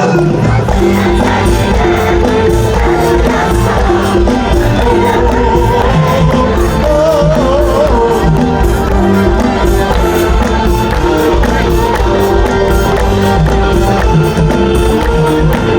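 Loud music: a sung melody over drums and hand percussion, played steadily without a break.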